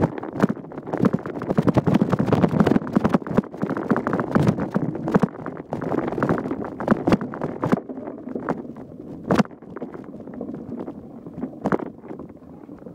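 Mountain bike clattering and rattling over rough, bumpy trail: a dense run of knocks and clicks from the frame, chain and tyres, heavy over the first eight seconds and thinner after.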